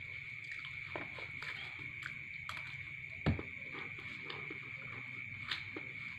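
Metal spoon scraping and tapping on a paper food wrapper while eating, small clicks about every half second, with one louder thump about three seconds in. A steady high-pitched whine sounds underneath.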